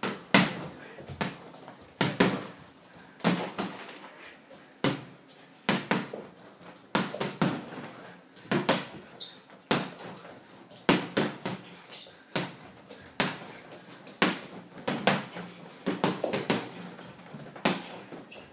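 Boxing gloves punching a hanging heavy bag: irregular punches landing about once or twice a second, often two in quick succession.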